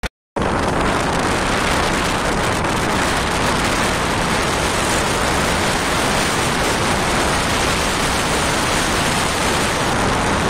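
Steady rushing road and wind noise of a moving vehicle, loud and even, cutting in abruptly a fraction of a second in.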